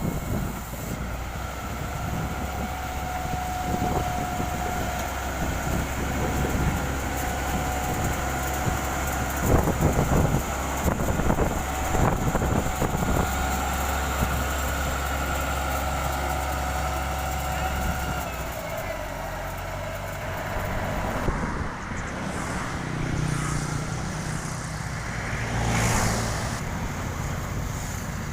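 Heavy diesel road-construction machinery running: a steady low engine drone with a whine above it, and a few knocks about ten to thirteen seconds in. The drone and whine fall away after about eighteen seconds, leaving a more mixed machine noise.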